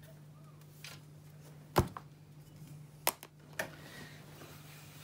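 Handling noise: a few sharp knocks and taps, the loudest a little under two seconds in and another at about three seconds, over a steady low hum.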